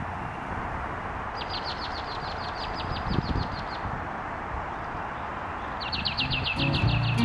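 A small songbird singing a fast trill of quick, evenly repeated high notes, about two seconds long, then again starting near the end, over a steady outdoor hiss.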